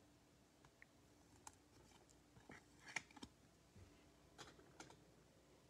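Near silence with faint clicks and taps of trading cards being handled and flipped through by hand, the loudest about three seconds in.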